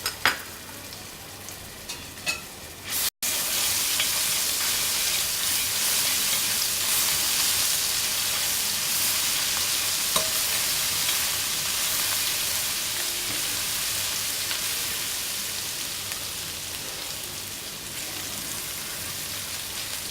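Chopped ginger and garlic sizzling in hot oil with cumin seeds in a pan. A few light utensil clicks come first, then about three seconds in a loud, steady sizzle starts abruptly and eases slightly toward the end.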